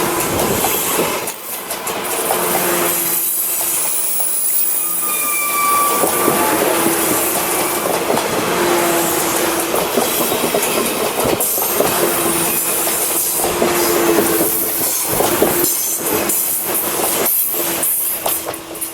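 TRA EMU100 electric multiple-unit express train passing at speed: steady wheel-on-rail rumble with repeated clacks over the rails and brief wheel squeals. The noise falls away near the end as the train moves off.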